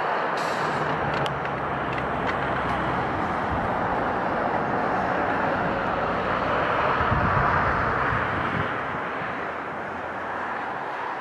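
Boeing 777-200ER jet engines roaring steadily during the landing roll. The sound swells with a deeper rumble after about six seconds as the engines spool up in reverse thrust, then eases off near the end.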